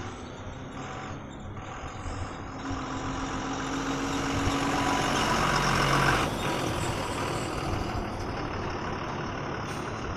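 Heavy dump truck passing close by, its engine growing louder to a peak about six seconds in, then dropping off sharply as it goes past. More truck engine noise follows.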